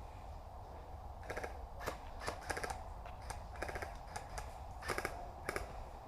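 Airsoft guns firing in short bursts of a few rapid shots, about once a second, with single sharp snaps between; the loudest burst comes near the end.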